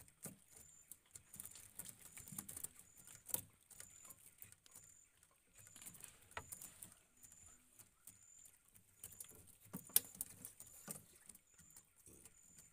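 Freshly caught fish, lais catfish and tilan spiny eels, flapping and wriggling against the netting and boat floor after being emptied from a bubu trap. The sound is irregular soft pattering and taps, with a couple of sharper knocks, the loudest about ten seconds in.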